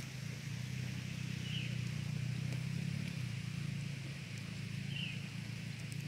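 Steady low drone of a distant engine, with a bird giving a short high chirp twice, about three and a half seconds apart.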